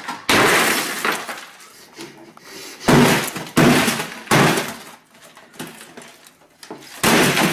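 A hammer blow shatters a glass coffee-table top about a third of a second in, with the glass crashing and tinkling down for about a second. Several more heavy crashes follow: three between about three and four and a half seconds in, and another near the end.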